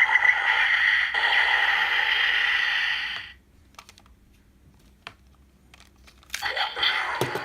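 Electronic sound effects from the DX Transteam Gun toy in rifle mode, played through its small speaker after a Full Bottle is inserted. A loud, harsh noise runs and cuts off about three seconds in. A few faint clicks of the toy's parts follow, and then another electronic effect with sliding pitch starts near the end.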